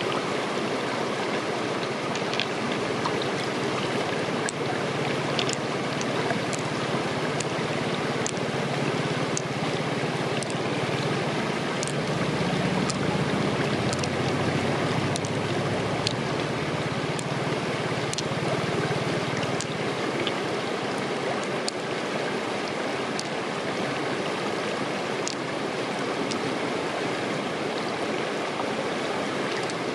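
Steady rushing noise like a flowing stream, with scattered small clicks as hands pick pearls out of an opened freshwater mussel.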